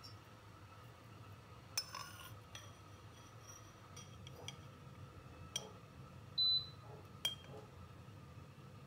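A metal spoon clinking against a small glass bowl as egg white is tipped off and the yolk is held back, with several light clinks. A short ringing clink just past the middle is the loudest.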